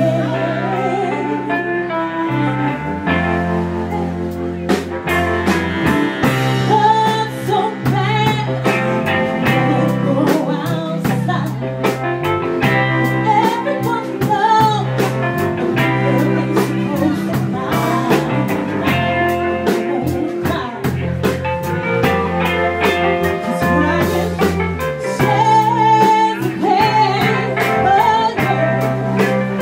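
Woman singing an R&B song live into a microphone over a backing band, with sustained bass notes and regular drum hits underneath her melody.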